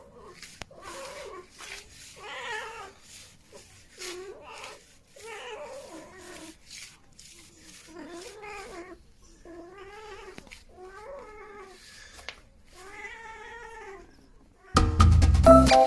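A series of drawn-out meows, about a dozen, each rising and then falling in pitch, coming roughly once a second. Near the end, loud music with a plucked, marimba-like melody starts abruptly.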